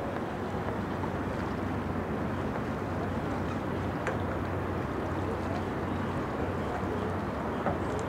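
Steady outdoor ambience dominated by a low, even hum of distant motor noise, with a few faint chirps and a couple of faint clicks.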